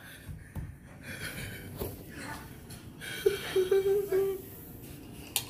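A man breathing hard in short, noisy breaths against the burn of spicy fire noodles, then a wavering moan lasting about a second, a little past the middle.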